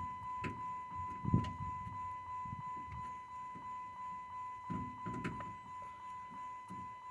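Soft knocks and rubbing from handling, with the strongest knock about a second in and a cluster near the middle. A steady high-pitched tone sounds throughout.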